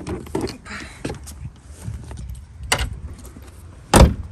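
Rustling and small clicks of handling in the back of a car, then a car door shut with one loud thump about four seconds in.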